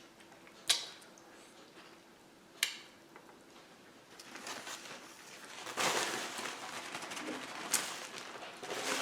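Eating at a plate of pasta and shrimp: a couple of sharp clinks of a fork against the dish in the first few seconds, then close-up chewing and mouth noise that gets louder about halfway through.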